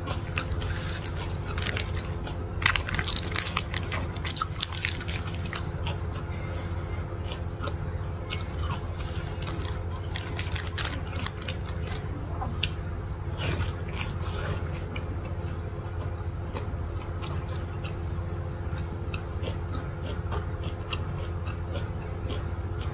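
Close-miked eating sounds: chewing and the wet tearing of a sauce-soaked, egg-wrapped burger pulled apart by hand, with crinkles of its paper wrapper. The crackle is thickest in the first few seconds and again around the middle, over a steady low hum.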